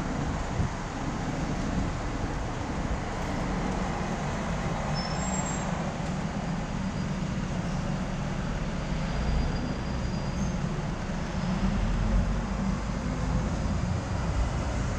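Sightseeing bus driving through city traffic, heard from its open top deck: a steady low engine rumble under road and traffic noise, with a couple of faint, brief high squeaks.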